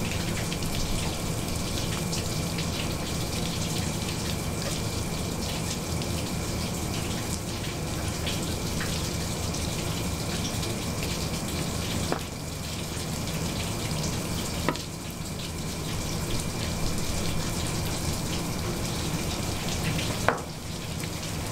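Steady rush of running tap water with a low hum under it. Three short, sharp clicks come in the second half.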